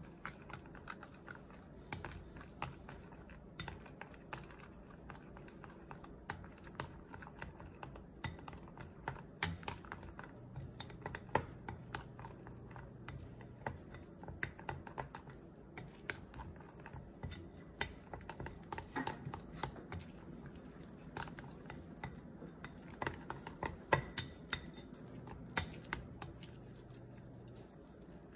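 Wooden chopsticks stirring flour into a thick pancake batter in a glass mixing bowl, clicking and tapping irregularly against the glass.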